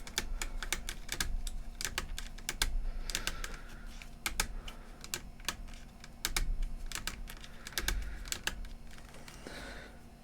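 Small plastic switches of a portable CD player clicked over and over in quick, irregular runs.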